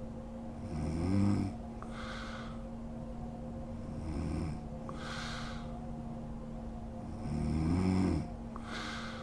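A woman snoring in her sleep: three snores about three seconds apart, each followed by a short breathy hiss, over a steady low hum.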